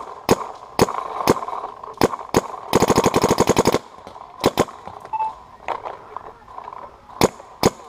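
DLX Luxe 1.5 electronic paintball marker with 2.0 core upgrades firing paintballs at about 280 fps. It fires a few single shots, then a fast string of about ten shots in roughly a second, then scattered single shots.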